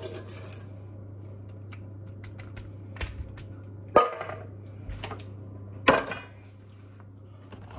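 A metal spoon knocking and scraping against a stainless steel bowl of sauced chicken wings: scattered clicks, with two louder ringing knocks about four and six seconds in, over a steady low hum.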